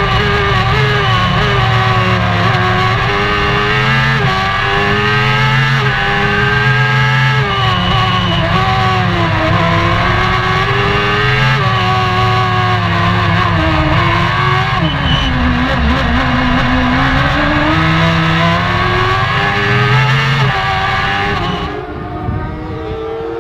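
Silver Car hill-climb race car engine at full racing effort, heard from inside the cockpit. The revs climb and drop again and again through gear changes and braking for corners. About 21 s in, the engine is instead heard from the roadside, quieter and duller.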